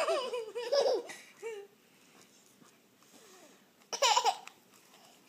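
A toddler laughing while a dog licks her face, in bursts of high-pitched giggles: a long peal at the start, a short giggle, then another loud burst about four seconds in.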